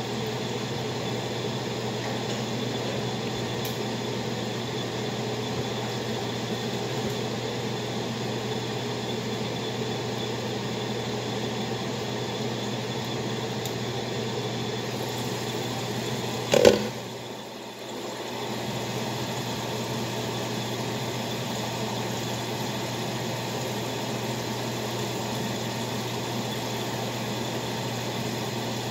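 Steady whir and low hum of a kitchen fan running, with one sharp knock a little over halfway through.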